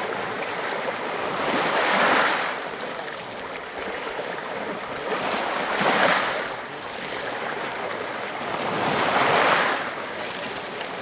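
Small sea waves washing in on a pebble shore, swelling and falling back three times, roughly every three and a half to four seconds.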